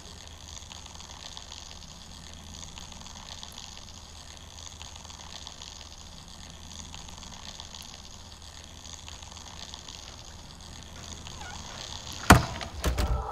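Low, steady background ambience, then near the end a few sharp knocks on a wooden front door: one loud knock, then two or three more close together.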